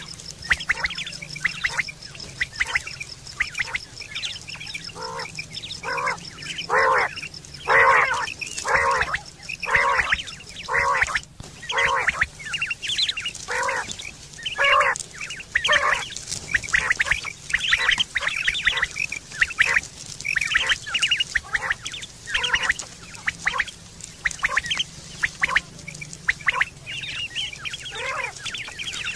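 Common quail calling: short, harsh calls repeated irregularly, about one a second. A steady high whine runs underneath and stops about eleven seconds in.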